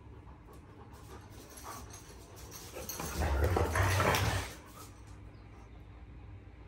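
Two young Kangal dogs play-fighting and panting, with a louder, rough stretch of about a second and a half, some three seconds in, as they tussle mouth to neck.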